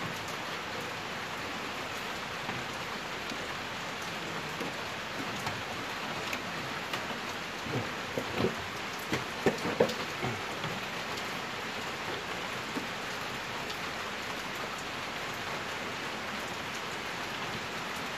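Steady rain, with a cluster of light knocks about halfway through.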